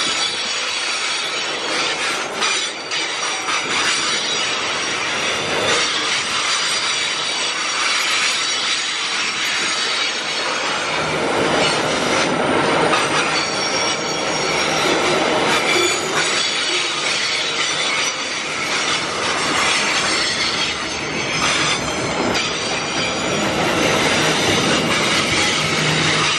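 Loaded freight wagons rolling steadily past on curved track, with a continuous rumble and rattle of wheels and couplings overlaid by layered high-pitched wheel squeal.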